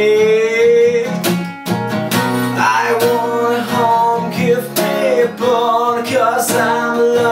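Acoustic guitar strummed in a steady pattern of ringing chords. A man's sung note is held at the start and ends about a second in, leaving the guitar alone.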